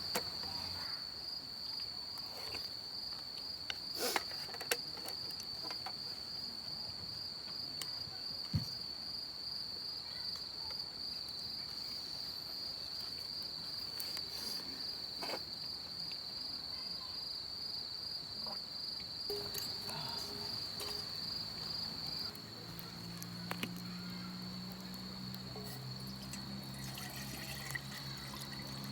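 Insects trilling steadily on one high pitch, with a few sharp clicks. A low, steady drone of several notes joins about two-thirds of the way through.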